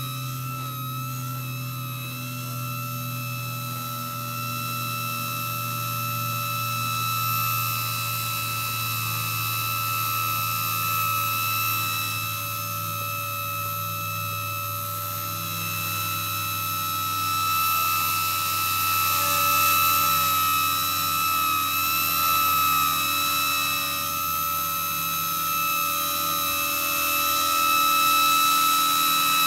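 Micro electric RC helicopter (cHP-120B) in flight: a steady high whine from its electric motor and gears over the hum of the spinning rotor, growing louder near the end as it comes in low and close.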